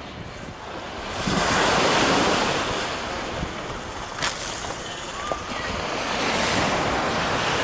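Small waves washing onto a sandy beach, rising and falling in two swells, with wind buffeting the microphone. A single sharp click about four seconds in.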